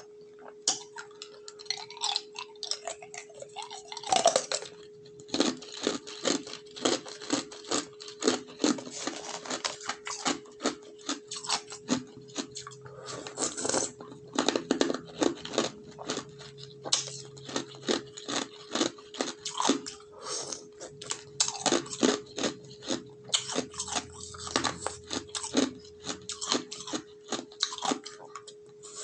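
Ice being bitten and chewed close to the microphone: dense, irregular crunching and cracking, several crunches a second.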